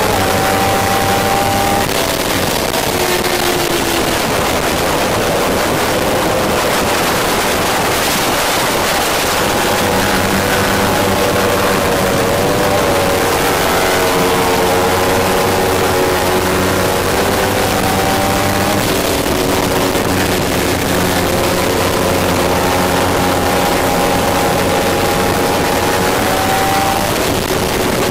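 Kawasaki Ninja 300's parallel-twin engine running hard at racing speed, heard from on board the bike with steady wind and road noise. The engine note climbs slowly through each gear and drops at the gear changes, several times.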